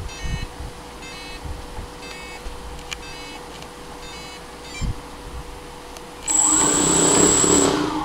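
F450 quadcopter's brushless motors and ESCs giving short multi-tone beeps about once a second. About six seconds in, the propellers spin up with a loud whir and a high steady whine, then begin to wind down near the end.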